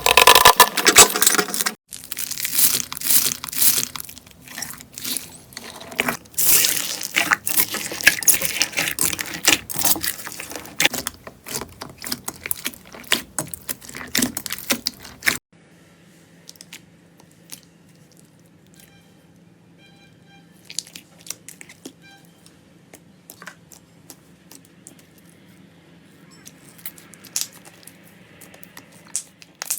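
Slime being squeezed and worked by hand, with a dense run of crackling, popping clicks. About halfway through it drops abruptly to a much quieter stretch of sparse, soft clicks.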